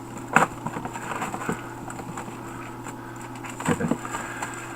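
Plastic shrink wrap crinkling and crackling as it is pulled off a cardboard box, with a sharp loud crackle about half a second in and another burst of crinkling near the end.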